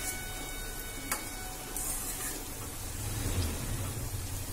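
Potato and cauliflower pakoras sizzling as they deep-fry in hot oil in an aluminium kadhai, stirred with a metal slotted spoon, with one sharp click about a second in.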